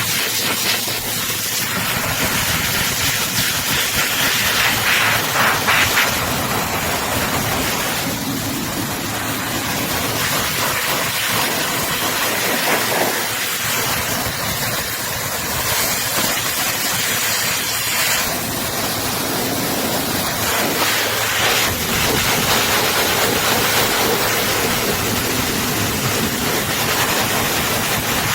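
EGFKI high-velocity pet dryer blowing a strong jet of air: a steady, loud rushing hiss that shifts a little in tone now and then.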